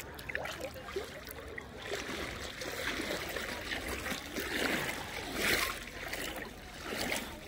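Shallow Dead Sea water lapping and sloshing in soft, irregular swells of splashy hiss.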